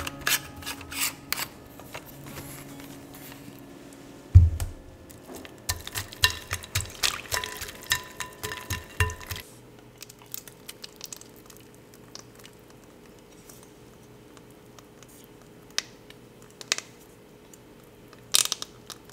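Stainless-steel noodle press being handled and assembled: a quick run of metal clicks and scrapes as the perforated die disc is fitted, a heavy thump about four seconds in, then more clicking for several seconds. After that it goes quieter, with a few scattered clicks.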